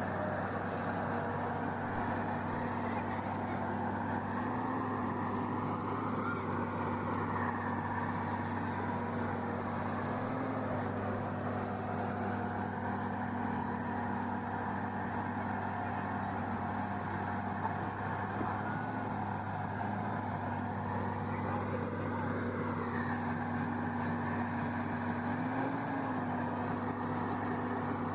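A heavy vehicle's engine running steadily, its pitch rising briefly four times.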